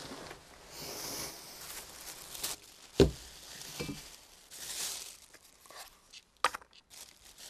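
Rustling of clothing and handling noises as a small bottle and cup are handled at a small table, with a sharp knock about three seconds in and a smaller click near the end.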